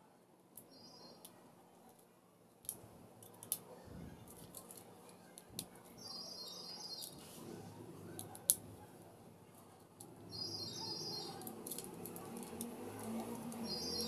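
Small bird chirping in short repeated bursts several times, over scattered sharp clicks and taps.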